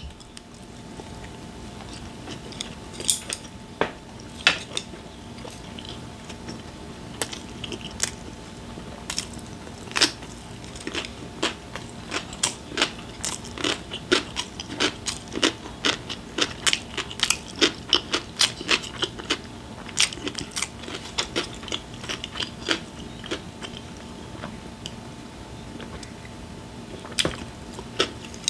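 Close-miked chewing of a pan-fried dumpling: a long run of soft, irregular clicks and crunches from the mouth, thickest through the middle.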